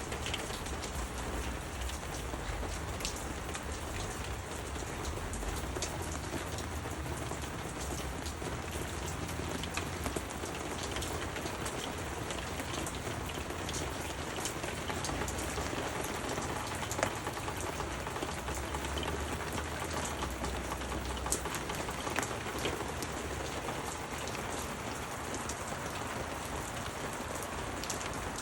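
Heavy rain coming down steadily: a dense, even patter of drops, with a few louder single drips around the middle.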